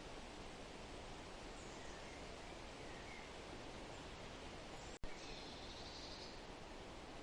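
Faint forest ambience: a steady rustling hiss with a few soft bird chirps, and one clearer bird call about five and a half seconds in. A momentary dropout with a click breaks the sound about five seconds in.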